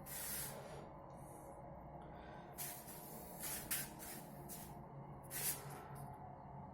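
Faint room tone with a low steady hum and a few short, soft rustling noises.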